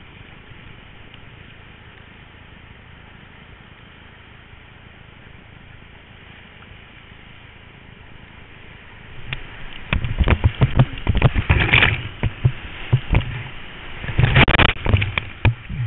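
Whitewater rushing steadily past a kayak-mounted camera, then, about nine seconds in, a run of loud splashes and knocks as the kayak runs into the rapid and waves break over the bow and the camera, peaking twice.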